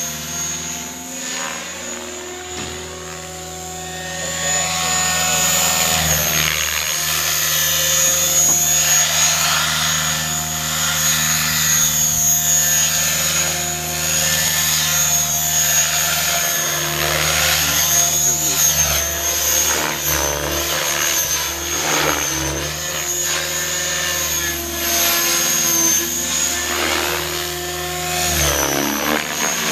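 Radio-controlled model helicopter in flight, its rotor and motor whine rising and falling in pitch as it swoops about, with a steady high whine underneath. Quieter for the first few seconds, then louder from about five seconds in.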